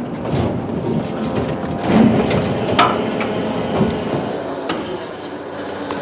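Boat engines running steadily, with scattered metallic clanks and rattles of gear.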